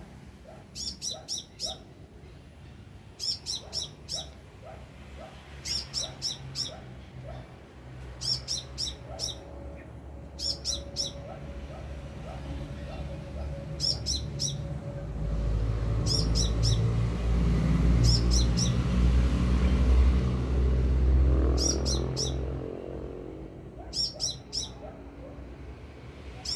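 A sunbird singing loudly, a quick run of three or four sharp, high notes repeated every two to three seconds. In the middle a low engine rumble swells and fades, briefly louder than the bird.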